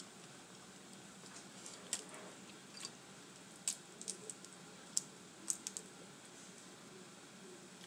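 Boiled crawfish shells cracking and snapping as they are peeled by hand: a scattering of short, sharp clicks, bunched in the middle.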